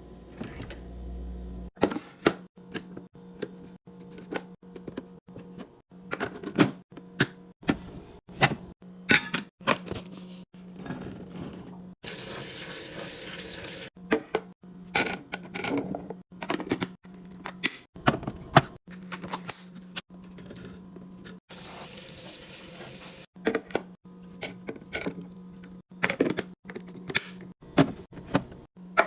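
Plastic and glass containers, lids and jars clicking and knocking as a refrigerator is organized, many short sharp strikes with irregular spacing, and two stretches of running water a couple of seconds each.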